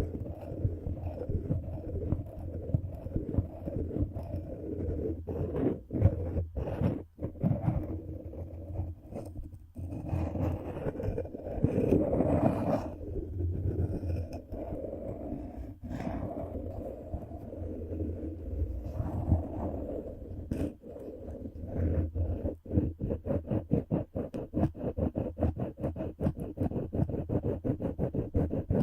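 ASMR friction triggers: continuous muffled scraping and rubbing on the microphone, growing into rapid close ticking and scratching near the end.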